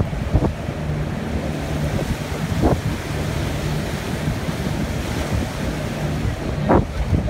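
Wind buffeting the microphone on the open deck of a moving tour boat, over water rushing past the hull and a low steady engine hum. A few short gusts or splashes stand out, the strongest near the end.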